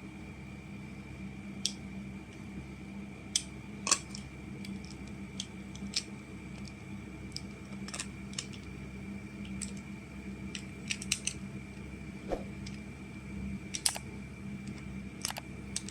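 Plastic magnetic building tiles clicking and clacking against each other as they are handled and snapped together, with a dozen or so sharp, irregularly spaced clicks.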